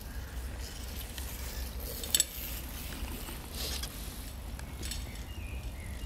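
Faint, scattered calls of forest birds over a low, steady rumble of wind or handling, with one sharp click about two seconds in.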